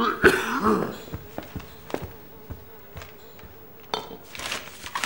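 A fly buzzing in a steady, wavering drone. A louder bending pitched sound comes in the first second, with scattered small clicks and a brief rustle about four seconds in.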